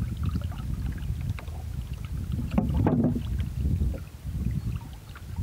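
Water lapping and gurgling against the bow of a small sailing duck punt moving slowly under sail, with a low rumble of wind on the microphone. The sound swells louder for a moment about halfway through.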